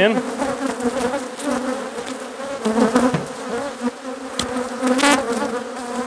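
Many honeybees buzzing in flight around an open, overcrowded hive: a dense, steady hum of overlapping wingbeats that wavers slightly in pitch, the sound of a crowded colony stirred up by an inspection.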